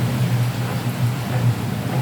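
Rain falling steadily, with a continuous low rumble underneath.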